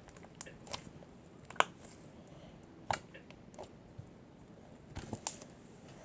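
Purplish-blue slime being squished and handled, giving scattered faint sticky clicks and small pops, about seven over a few seconds.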